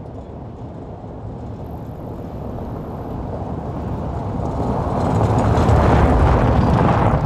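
A vehicle's engine and road noise swelling steadily louder over several seconds, then cutting off abruptly.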